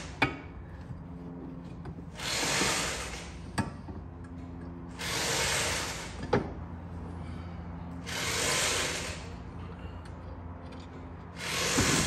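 A rubber shifter grommet and plate being pushed and worked into a car's center console by hand: scraping rubs that swell and fade about every three seconds, with a few sharp clicks in between.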